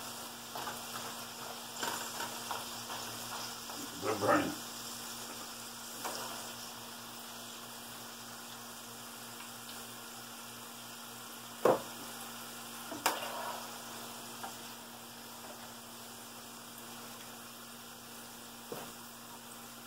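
Food sizzling hard in a frying pan, which the cook says is burning, while a utensil stirs it, with a few sharp clacks of metal on the pan, the loudest about twelve seconds in.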